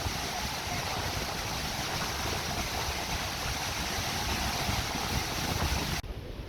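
Niagara Falls' water rushing as a steady, even noise, cutting off suddenly near the end.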